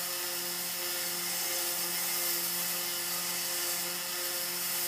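Homemade Mantis MKII spindle on a DIY CNC router, running at speed and milling foam: a steady high-speed whine over a hiss. Beneath it a lower hum swells and fades a little more than once a second.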